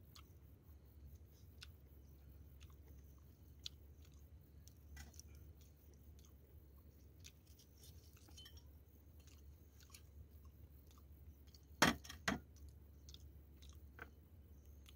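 Faint chewing and small clicks of someone eating, with two loud sharp knocks in quick succession about twelve seconds in.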